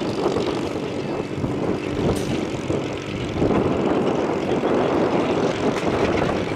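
Aircraft engine running: a steady rumble with a broad hiss, growing a little louder about three and a half seconds in.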